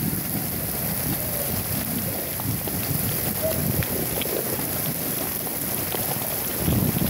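Torrential rain pelting a flooded street, with the hiss of drops on standing water and a steady patter of individual drops. Underneath runs a low rumble that rises and falls.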